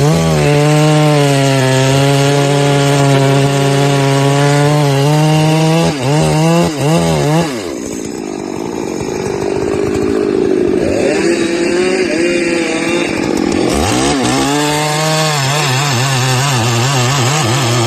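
Chainsaw running at high speed with a steady engine note; its pitch wavers briefly, then for about six seconds the sound turns rougher and a little quieter before the steady high note comes back.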